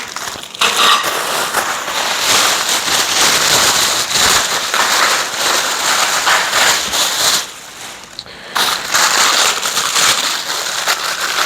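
Plastic packaging crinkling and rustling as kit parts are handled, with a short lull about eight seconds in.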